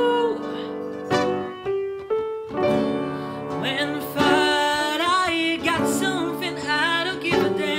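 A male singer singing a slow English-language pop ballad live, with his voice bending and wavering on held notes, over acoustic guitar and piano accompaniment.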